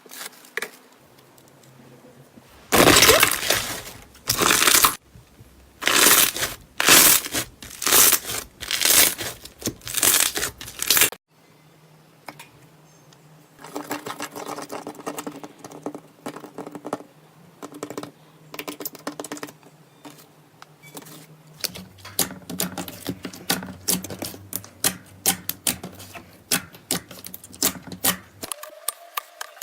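Slime being squeezed, stretched and poked by hand, making crunchy, crackling and tearing sounds. It comes in separate clips: first loud crunches about once a second, then softer steady crackling, then a quick run of small pops and clicks.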